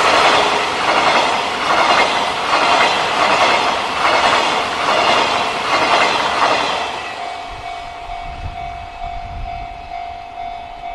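Freight train of flat wagons carrying long rails rolling past, its wheels clattering over the rail joints in a steady rhythm, about one clack every half-second or so, then fading away about seven seconds in. A level-crossing alarm is left ringing as a steady, pulsing tone.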